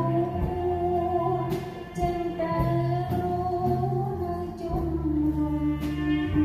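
A woman sings a Khmer pop song live with a band accompanying her on keyboard and guitar. She holds long sung notes over sustained low accompaniment, with a few sharp strokes from the band.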